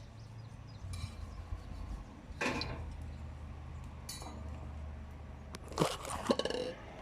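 Metal clinking and clanking as steel and forge tools are handled, a few separate knocks with a short ring and a quick cluster of several near the end, over a steady low hum.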